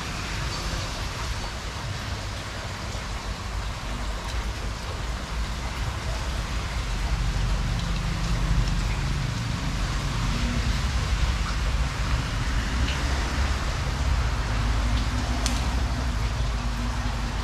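Steady rain falling, an even hiss, with a low rumble underneath that grows louder about halfway through.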